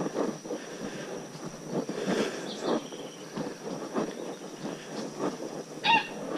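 Footsteps crunching along a gravel and dirt track at a walking pace, about two steps a second, over a steady high insect buzz. Near the end a dog gives a short high yelp.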